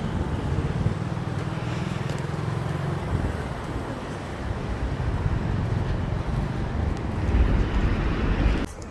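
Street traffic: a steady rumble of vehicles that swells louder near the end as one passes close, then drops away suddenly.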